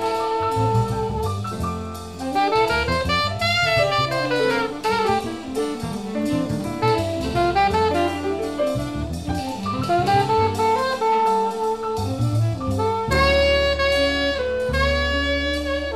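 Instrumental jazz music: a melody line in quick rising and falling runs over bass and drums, settling into longer held notes near the end.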